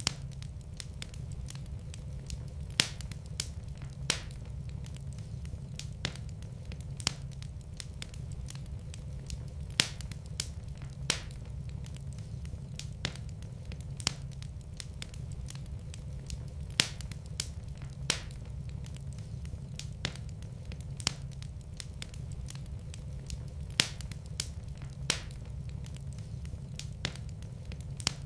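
Wood fire burning in a fireplace: a steady low rumble of the flames with irregular sharp crackles and pops, roughly one or two a second.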